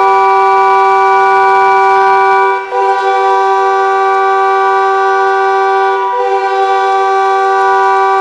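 Montreal Canadiens' arena goal horn blowing to signal a home goal: a loud, steady blast of several pitches sounding together, broken twice by a brief gap.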